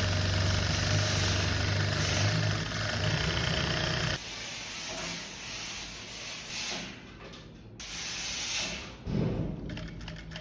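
Garment-workshop machinery: a steady low motor hum with hissing for about four seconds, then it stops abruptly, leaving quieter, uneven workshop noise.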